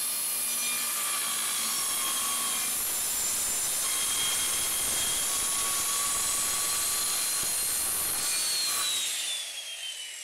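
Skil circular saw cutting through a wooden shelf board, a loud steady sawing noise. About eight seconds in the cut ends and the motor winds down with a falling whine.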